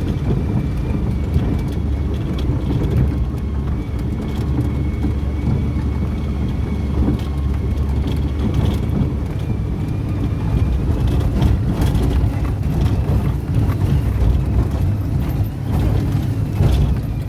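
An engine running steadily at constant speed, a loud low rumble with wind buffeting the microphone and a faint steady high whine above it.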